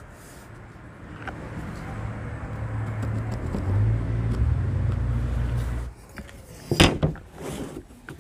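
A motor vehicle engine runs with a low, steady rumble that grows louder over several seconds and then cuts off abruptly. Soon after come two sharp knocks as the metal ruler is shifted on the plywood sheet.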